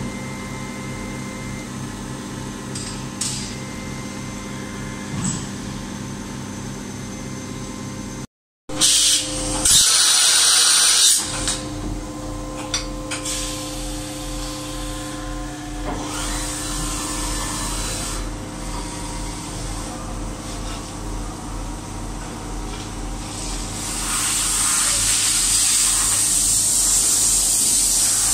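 CNC vertical machining center running and drilling: steady spindle and machine hum. The sound cuts out briefly about eight seconds in; a loud hiss follows for about two seconds, and a louder high hiss returns over the last few seconds.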